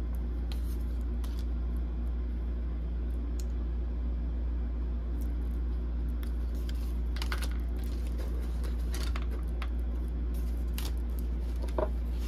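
A steady low hum, with sparse faint light clicks and taps from tarot cards being handled and laid down; a couple of sharper clicks come near the end.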